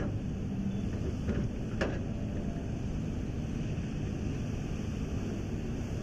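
Diesel engines of a Hitachi ZX350 excavator and an articulated dump truck running with a steady low rumble while the excavator dumps a bucket load into the truck bed. Two sharp knocks about two seconds apart come from the dumping.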